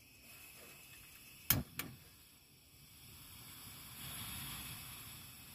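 Portable gas camping stove being lit under a kettle: two sharp clicks of the igniter about a second and a half in, then the burner catches and its gas flame hisses steadily, louder from about four seconds in.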